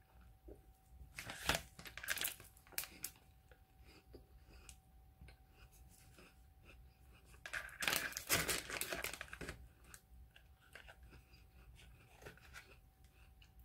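Close-up crinkling and tearing of a thin food-packaging wrapper, in two spells of crackly rustling: one about a second in and a louder one around eight seconds in.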